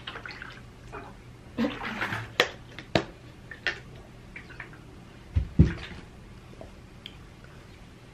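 Drinking from a large plastic water jug: gulping and swallowing sounds, a few sharp clicks, and one heavier thump about five and a half seconds in as the jug is set down.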